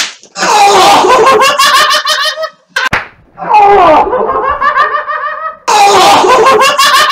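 A sharp whip stroke lands on a bent-over man's back, followed by loud cries and laughter; a second stroke lands about three seconds in, followed by more cries and laughter.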